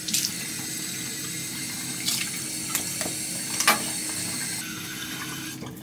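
A tap running into a bathroom sink in a steady stream, with a few light knocks, the sharpest a little past halfway; the flow thins near the end.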